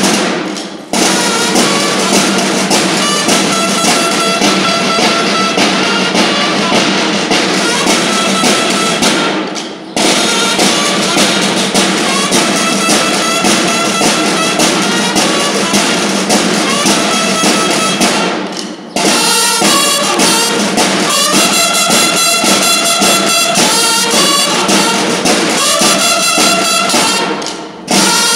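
School drum-and-bugle corps (banda de guerra): bugles sounding calls over field drums beating a march. The playing breaks off briefly between phrases, just under a second in, at about ten seconds, at about nineteen seconds and near the end.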